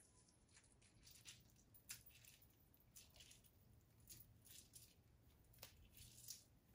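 Half a lemon squeezed by hand over a salad bowl, heard faintly as a run of irregular soft clicks.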